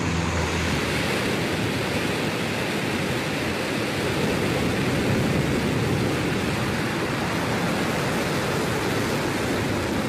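Rocket engine at liftoff: New Shepard's single BE-3 liquid hydrogen–liquid oxygen engine firing at full thrust as the vehicle clears the pad, a steady rushing roar.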